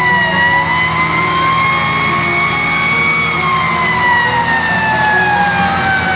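Fire truck siren wailing, heard from inside the cab: the pitch climbs slowly for the first three seconds or so, then falls slowly for the rest, over the truck's engine running.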